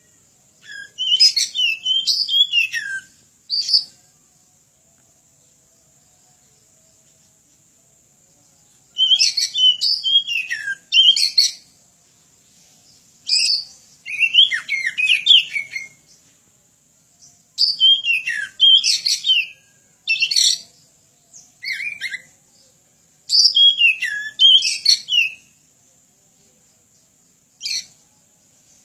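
Oriental magpie-robin (kacer) singing in full voice: loud, varied phrases of clear whistles and quick warbles, each burst lasting one to three seconds, with short pauses between.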